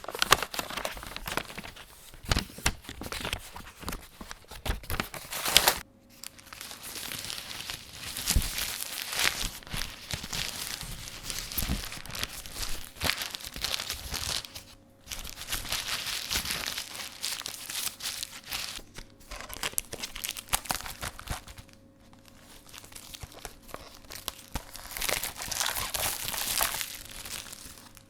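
Packaging being torn and crinkled in three takes: A4 paper packaging torn open, then about six seconds in burger bun packaging unwrapped with long crinkling rustles, and later the outer wrapping pulled off a cup noodle and its lid peeled open. Brief pauses separate the takes.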